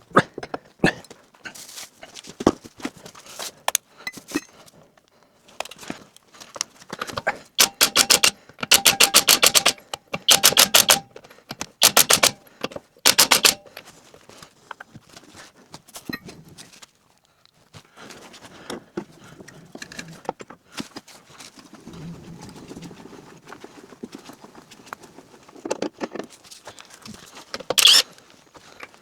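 A ratchet tool clicking in several short bursts, about ten clicks a second, with scattered metallic knocks in between, as wheel hardware is worked during a tyre change.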